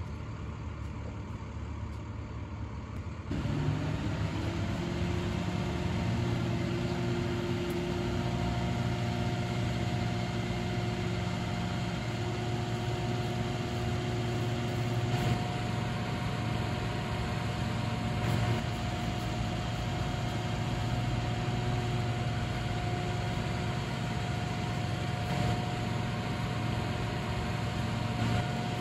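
Boom truck's engine running with the crane hydraulics working. About three seconds in it steps up to a higher, steady speed with a constant hum, as the GIUFFRE telescopic crane boom is lowered and extended.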